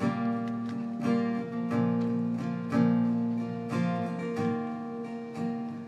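Acoustic guitar strumming chords, a strong strum about once a second with the notes ringing on between strums, in an instrumental passage with no singing.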